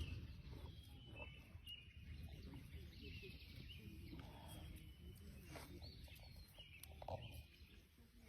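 Faint, short bird chirps repeating here and there over low outdoor background noise, with a brief knock right at the start.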